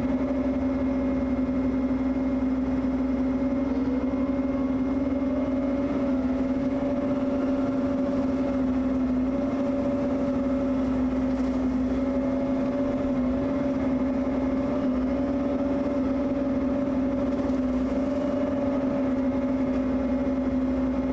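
Bobcat E55 mini excavator running at a steady high throttle, driving a 42-inch Blue Diamond hydraulic rotary brush cutter as it cuts down into brush from above, with a steady, unchanging drone.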